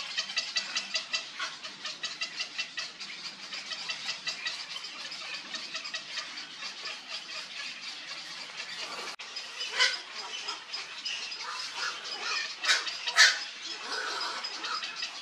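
Black-crowned night herons at a nest with downy chicks: a fast, even ticking chatter, then three loud harsh squawks, one about two-thirds of the way in and two close together near the end.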